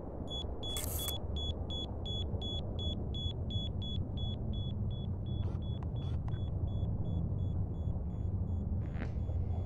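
Rapid electronic beeping, about three to four high beeps a second, fading over the last few seconds, over a steady low rumble. A short hiss sounds about a second in.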